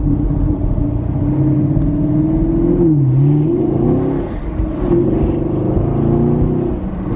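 Chevrolet Camaro ZL1's V8 under acceleration, heard from inside the cabin. The revs rise, dip and climb again with gear changes about three seconds in and again a second or so later.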